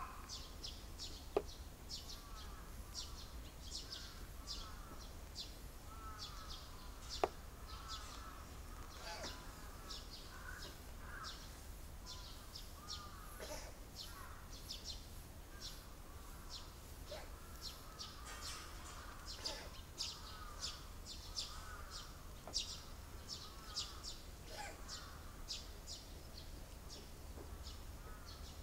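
Birds calling steadily in a fast run of short, repeated chirps, with two sharp clicks about a second and a half in and about seven seconds in.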